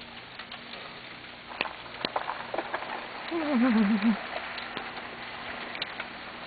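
Sleet pattering steadily, with scattered sharp cracks of ice-laden tree branches. A little past the middle, a short wavering voice-like sound falls in pitch.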